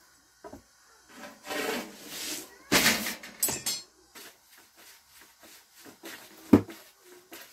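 A long thin wooden rolling pin rubbing and rolling over flour-dusted flatbread dough on a low wooden board, with brushing swishes in the first half and one sharp wooden knock near the end.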